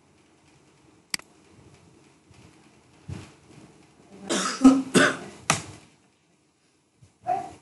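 A person coughing: a run of several loud coughs in the middle, with a lighter one before and another near the end. There is a single sharp click about a second in.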